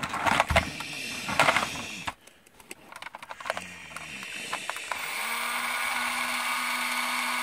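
Plastic clicks and rattles as the toy motorbike is fitted into the launcher, then the battery-powered motor of the Bandai Spiral Shooter toy launcher spins up with a rising whine about three and a half seconds in and runs at a steady hum.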